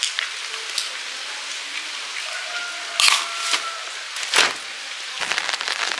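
Steady hiss of heavy rain, broken by a few sharp knocks about halfway through and again near the end.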